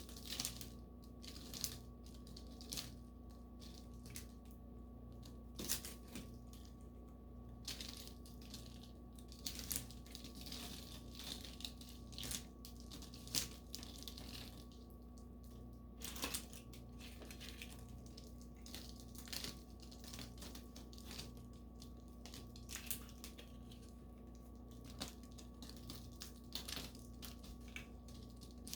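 Small plaster tiles being crushed and crumbled: irregular crunching and crackling with scattered sharper snaps, over a faint steady hum.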